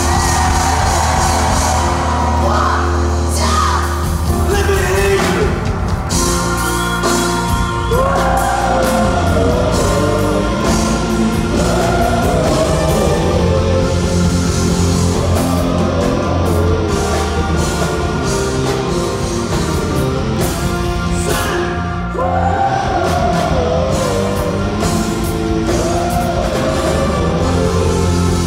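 Live rock band playing a song with singing, steady and loud throughout.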